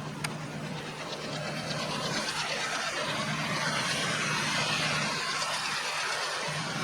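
Harvest machinery running steadily, a constant low engine hum under a broad mechanical hiss that grows a little louder about two seconds in.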